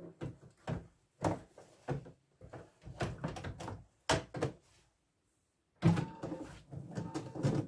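Denim fabric pieces being handled, laid and smoothed over the hooped fabric on an embroidery machine: a run of short rustles and light knocks, then a denser stretch of handling noise from about six seconds in.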